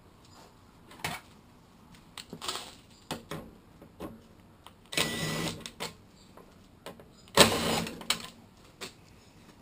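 A cordless screwdriver runs in two short bursts, about 5 and 7.5 seconds in, backing out the screws that hold the top cover on a lawn mower engine. Scattered clicks and knocks of handling come in between.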